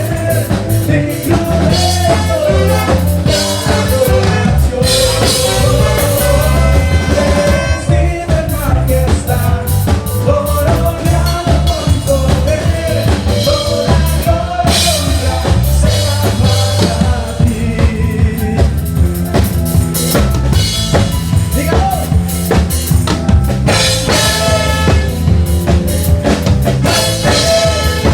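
Band music with a drum kit and bass playing a steady beat under a wavering melodic lead.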